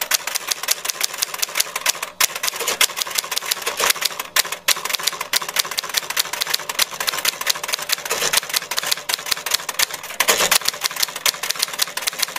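Typewriter sound effect: a rapid, uneven run of mechanical keystroke clicks, broken by a couple of short pauses.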